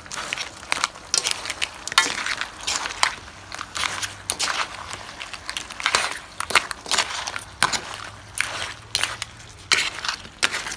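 A spatula scraping and clacking against a metal wok as crab pieces in their shells are stirred in sauce: irregular sharp knocks and scrapes over a steady hiss.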